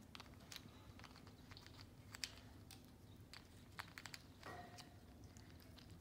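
Faint, scattered clicks and taps of parrots' beaks picking up and handling plastic building-block toys.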